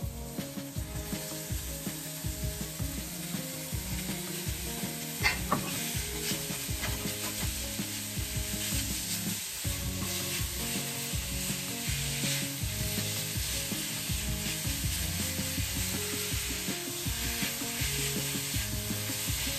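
Raw minced pork and diced onion frying with a steady sizzle in a ceramic frying pan, stirred and broken up with a spatula that scrapes across the pan.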